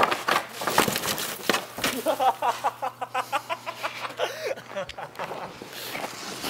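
Snowboard knocking and clattering on a wooden handrail, several sharp hits in the first second and a half, followed by people's voices for a few seconds.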